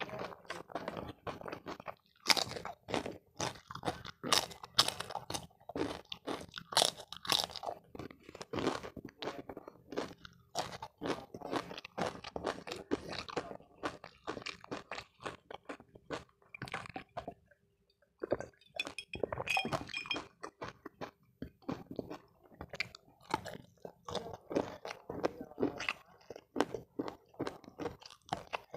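Close-miked chewing and crunching while eating spicy chicken necks by hand: a dense, irregular run of crackly mouth clicks and crunches, with a short pause about two-thirds of the way through.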